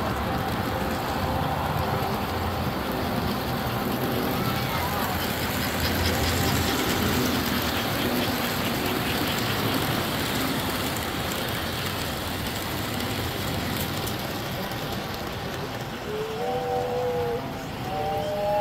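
S gauge model trains running on the layout track: a steady rumble of wheels and motors, with the chatter of people in the hall. Near the end a model train whistle sounds twice, each time a short chord.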